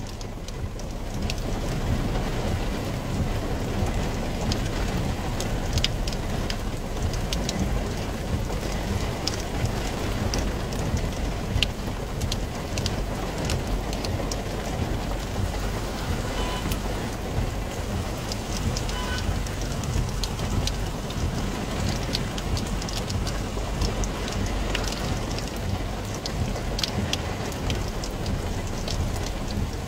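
Heavy rain falling on a car's roof and windscreen, heard from inside the cabin: a dense, steady patter with many sharp ticks of single drops striking the glass.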